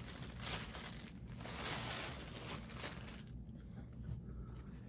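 Crinkling of a clear plastic bag as a cap is pulled out of it, dying away about three seconds in.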